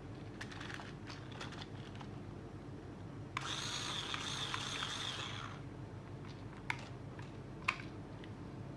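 Small electric motor of a toy RC car whirring for about two seconds near the middle, amid scattered plastic clicks and taps from handling.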